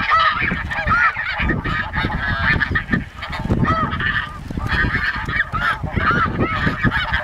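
A flock of snow geese calling: many short, high honks overlapping without pause. Wind buffets the microphone underneath as a low rumble.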